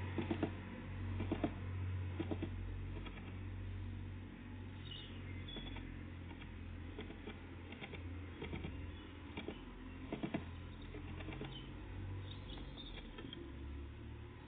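Irregular light taps and clicks of tits pecking at and landing on a peanut feeder, over a steady low hum. Faint high chirps come twice.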